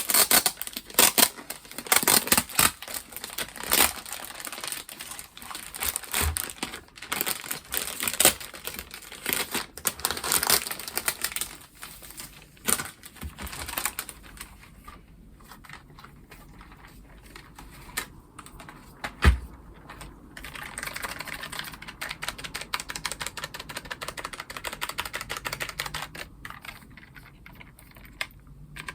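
Typing on the low-profile GL Tactile mechanical key switches of a Logitech G915 keyboard: a dense run of rapid keystroke clicks for about the first half, then sparser presses. One loud knock comes about two-thirds of the way in, followed by soft rustling.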